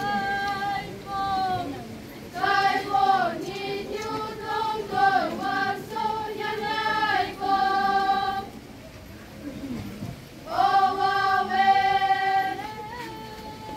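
A group of girls singing a traditional Naga folk song together, in long held phrases with a short pause about two-thirds of the way through.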